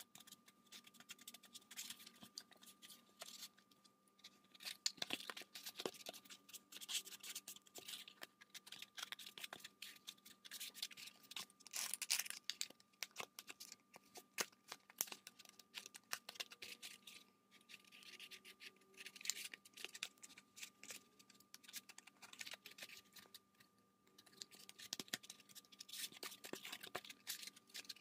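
Hands rubbing and pressing black foam sheets together along a seam: quiet, irregular scratching and crackling.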